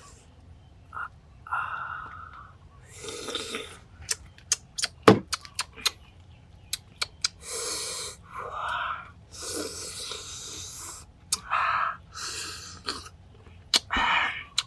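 A person's breathy hisses and puffs, about six of them, with a run of sharp clicks between them partway through.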